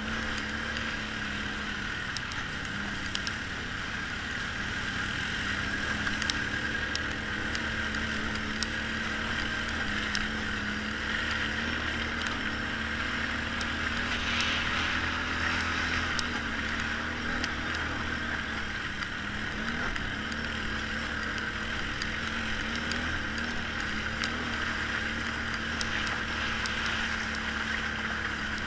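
ATV engine running steadily at trail-riding pace, its pitch wavering slightly, with scattered light ticks over the drone.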